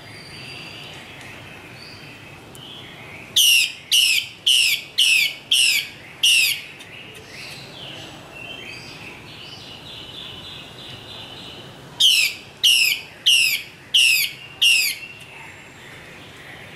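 Female hwamei (Chinese melodious laughingthrush) calling in two runs of loud, sharp notes, each sliding steeply down from high to low, about two a second: six notes a few seconds in, then five more about twelve seconds in, with softer warbling between.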